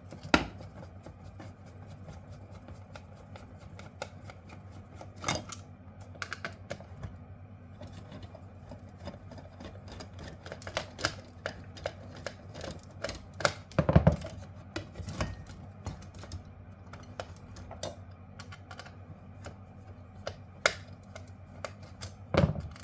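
Irregular clicks, ticks and knocks of tools and metal parts as screws are undone and a circuit board is freed from a backup power supply's casing, with one louder knock about two-thirds of the way through.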